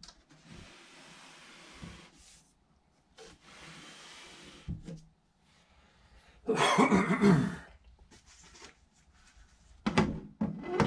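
Kayak crate being handled on a cloth-covered table: two stretches of sliding and rubbing as it is turned, a louder clatter of handling about six and a half seconds in, then two sharp knocks near the end as a flat top panel is set on it.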